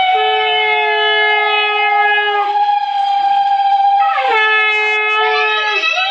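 Conch shells (shankha) blown together in long, steady, loud notes, one higher than the other, overlapping. The pitch sags and slides down at the end of a breath a few times before the notes sound again.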